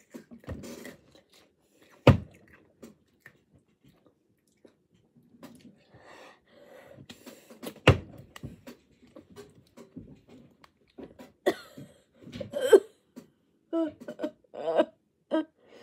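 Crackling rustle of a Lay's potato chip bag and crisps being crunched, with a few sharp clicks and short breathy mouth sounds near the end as she reacts to the too-spicy hot pot flavour.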